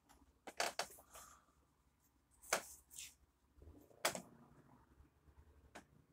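A sheet of drawing paper being handled and shifted by hand: a scattering of short sharp paper crackles and taps, a quick cluster about half a second in and then single ones every second or so.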